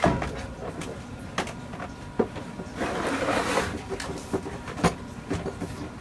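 A plastic battery case being handled and fitted over a 12-volt battery: scattered clicks and knocks of plastic, with a scraping rustle about three seconds in.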